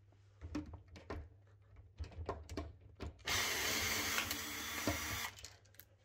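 A few light clicks and knocks of handling, then a cordless drill-driver with a Torx bit runs steadily for about two seconds, backing a screw out of the dishwasher's plastic roof lid.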